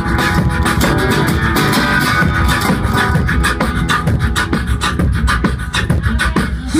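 Live beatboxing into a handheld microphone: a fast, dense vocal beat of kick, snare and hi-hat sounds, with a resonator guitar playing along underneath.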